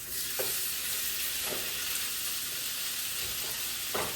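Cooked rice frying in hot oil in a pan, with a steady sizzle and a few knocks of a stirring utensil against the pan.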